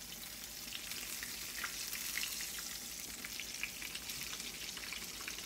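Breaded green tomato slices frying in hot peanut oil in a cast-iron skillet: a steady sizzle with scattered crackles and pops as they are turned over with tongs. The oil is running a little hot.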